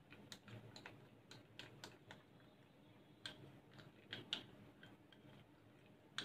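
Faint, irregular clicks and taps of a silicone spatula scraping chilled ghee out of a small glass bowl.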